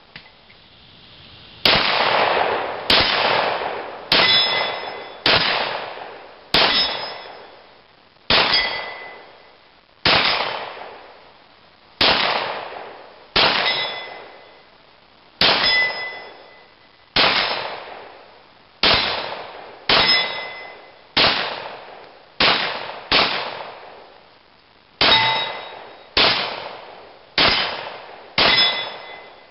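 Glock 17 9mm pistol fired at a steady, unhurried pace, about one shot a second and some twenty shots in all, starting about two seconds in. Many shots carry the high ring of a struck steel target plate.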